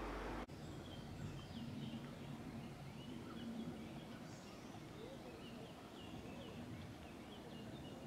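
A steady hiss cuts off abruptly about half a second in. Small birds then call in woodland with many short, high chirps repeated throughout.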